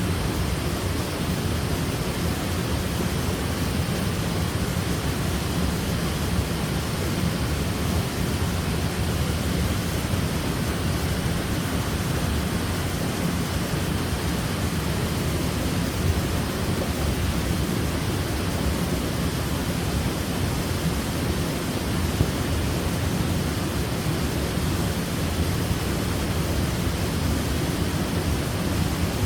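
Waterfall: a steady, heavy rush of falling water, deepest in the low end, with small spikes of splashing here and there.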